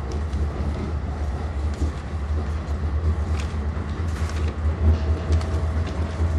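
Tram running, heard from inside the car: a steady low rumble with small rattles and clicks, and a faint brief whine about five seconds in.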